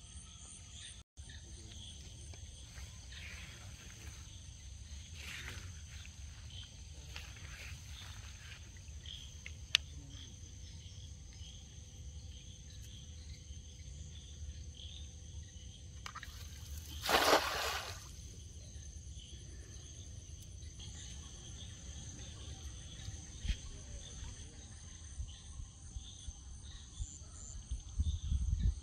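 A steady chorus of insects chirring. About halfway through comes the loudest sound, a single splash lasting about half a second, as a thrown cast net lands on the pond.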